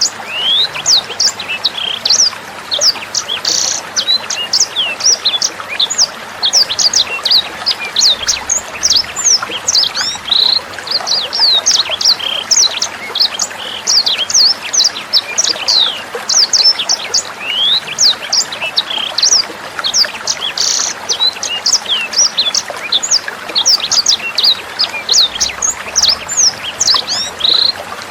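Sanger songbird singing a fast, unbroken string of sharp high chirps and quick whistled sweeps, over the steady trickle of running water.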